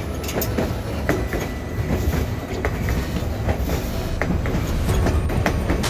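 Narrow-gauge passenger train cars of the White Pass and Yukon Route rolling along the track: a steady rumble with irregular sharp clicks as the wheels pass over the rails.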